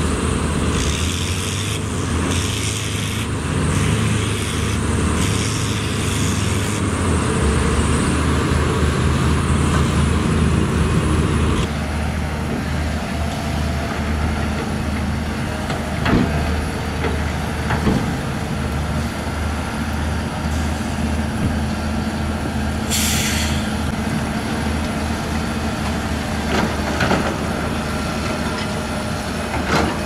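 Diesel engines of heavy earthmoving machines running: a LiuGong bulldozer pushing sand beside a dump truck, then, after an abrupt change about twelve seconds in, a Caterpillar 320 excavator working. A few metal clanks and a short burst of hiss, about a second long, come in the later part.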